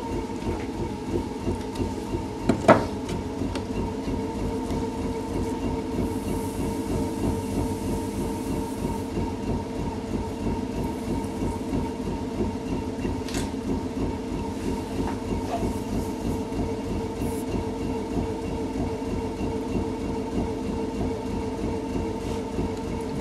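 Potter's wheel running under clay being thrown: a steady mechanical hum with a fast, even rumbling pulse. A single sharp knock comes a little over two and a half seconds in.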